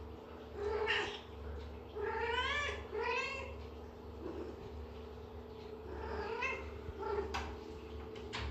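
Domestic cat meowing: one call about a second in, two quick calls about two and three seconds in, and a fainter one past the middle, each rising then falling in pitch.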